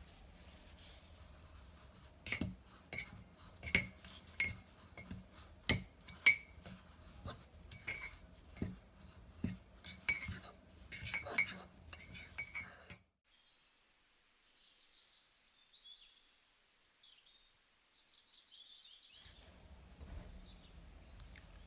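A metal spoon clinking repeatedly against a mug as cake batter is mixed or ingredients are spooned in. There are about one or two ringing clinks a second, and they stop about two-thirds of the way through.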